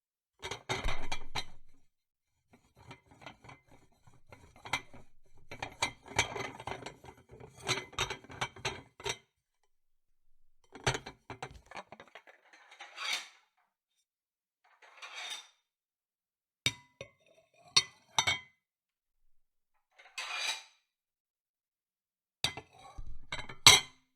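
Dishes being handled: plates, glasses and cutlery clinking, rattling and knocking together in irregular clusters, with short scraping slides and silent gaps between, and a sharp double clink near the end.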